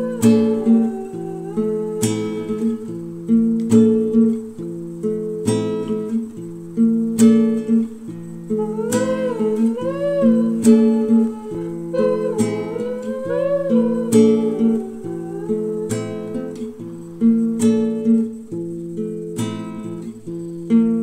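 Background music led by acoustic guitar: plucked and strummed chords, with a sliding, bending melody line over them at times.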